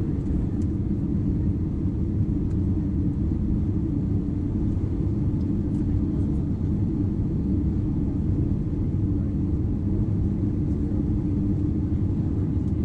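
Steady low rumble of an Airbus A320's engines and rushing air, heard inside the passenger cabin on final approach.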